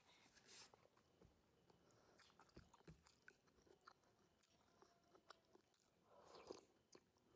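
Faint close-up eating sounds: chewing with small wet mouth clicks, and a sip of soup from a spoon about six seconds in.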